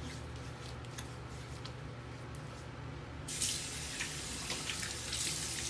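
A tap runs into a bathroom sink while water is splashed onto the face to rinse off shaving lather. The first three seconds are quieter, with a few small drips and clicks. A little over three seconds in, the splashing gets louder.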